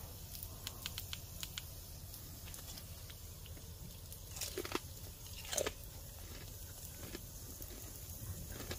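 A person chewing a bite of smoked beef bacon close to the microphone, with a few small clicks in the first couple of seconds and two brief louder mouth sounds about halfway through, over a steady low hum.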